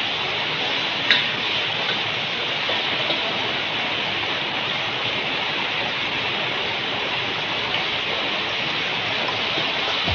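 Garlic cloves and onion frying in butter in a metal wok: a steady sizzle, with one light click about a second in.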